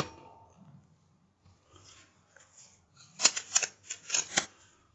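The report of a just-fired air rifle dies away at the start, then a quick run of short metallic clicks and rustles about three seconds in: the air rifle's action being cycled to load the next pellet.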